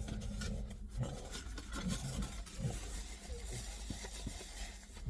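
A person chewing a mouthful of döner kebab in bread, with irregular small mouth sounds and faint rustles close to the microphone.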